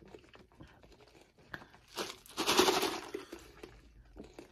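Drink slurped from a nearly empty foam cup, with a rough slurp lasting about a second, starting about two seconds in, and small mouth clicks before it. The cup is running dry.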